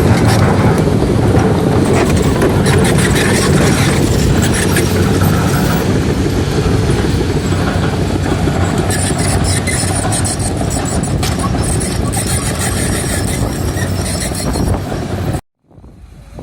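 Loud, steady rumble of motor vehicle noise with scattered clicks and rattles, which cuts off abruptly near the end before fainter noise returns.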